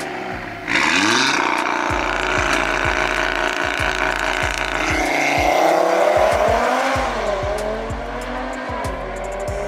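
A big-turbo Audi TT RS with its turbocharged five-cylinder and a second car launching hard from a drag-strip start line and accelerating away. The engines rise sharply in pitch and drop back at each upshift, with a burst of tyre noise at the launch.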